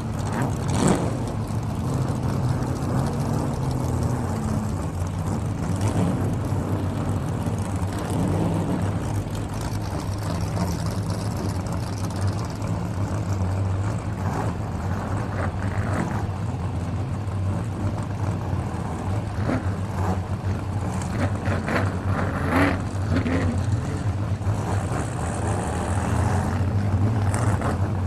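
Car engines running with a steady low hum, in a race, with scattered sharp clicks and knocks over the top.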